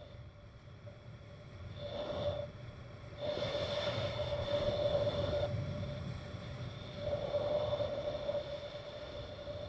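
Hiss and scrape of sliding down a packed-snow ski slope, swelling in surges about two, four and seven and a half seconds in, with a faint steady whine underneath.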